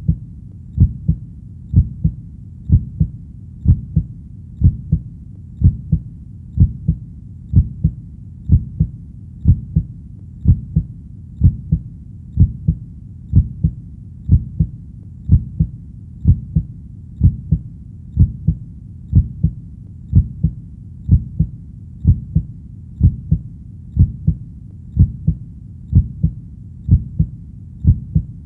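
A heartbeat beating steadily, each beat a low double thump (lub-dub), at about one beat a second.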